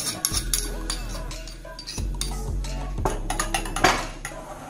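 Steel spoon scraping and clinking against a mortar and a glass bowl as crushed mint and chilli paste is scraped into yogurt: a run of quick clicks and scrapes, with a sharper knock late on.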